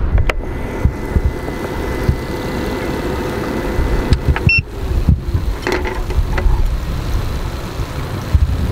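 Karaage sizzling on the hot plate of an electric hot sandwich maker, under a low rumble of wind on the microphone. A short high beep about four and a half seconds in.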